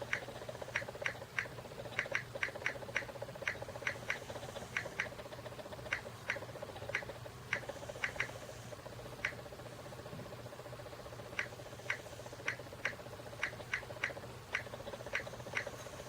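Taps on a media player's touchscreen: short, sharp clicks in quick, irregular runs, with a pause of about two seconds midway. A steady low hum runs underneath.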